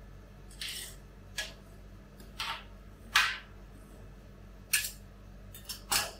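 Steel spatulas scraping and tapping on the frozen stainless-steel plate of a rolled ice cream pan, working the edges of a thinly spread layer of banana ice cream: about seven short scrapes and clicks, the sharpest ones about three and five seconds in.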